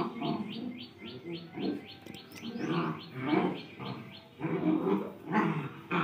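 Two dogs play-fighting, with bursts of growling and whining. A quick run of short, high chirps, about five a second, sounds over the first two and a half seconds.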